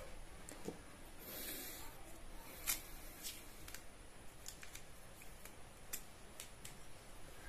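Paper masking tape pulled from its roll with a short rasp about a second in, then scattered light clicks and ticks as the tape roll and wires are handled.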